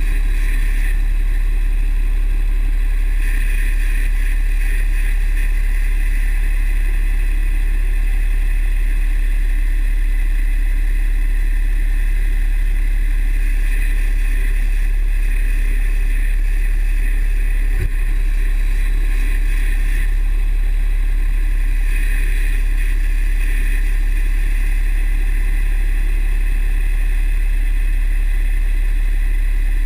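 Cummins 6.7 L turbo-diesel in a 2009 Dodge running steadily with a deep rumble. Over it a high squeal swells and fades several times. The squeal comes only with the exhaust brake engaged, and the owner thinks it sounds like the turbo but cannot pinpoint it.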